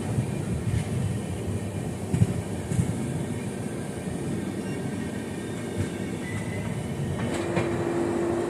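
Passenger train pulling away, heard from an open coach doorway: a continuous rumble of wheels on the rails, with a couple of sharp knocks about two seconds in. A steady high note joins near the end.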